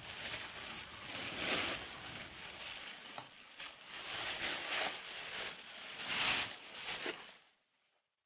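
Thin plastic bag crinkling and rustling as it is untied and pulled open by hand, with louder crackles now and then; the sound cuts off suddenly near the end.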